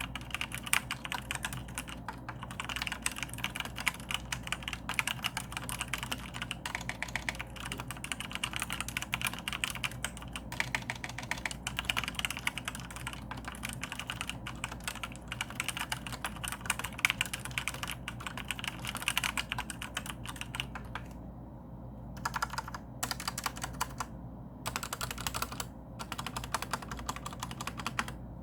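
Mechanical keyboard with Outemu brown tactile switches (Maxtill TRON G400K) being typed on quickly and continuously, a dense run of key clacks, with a couple of brief pauses a little over two-thirds of the way through.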